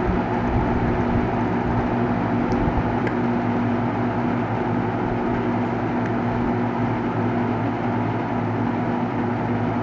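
Edison Comfort Fan box fan, model 204016, running steadily on a low setting of its variable-speed dial: an even rush of air with a constant motor hum.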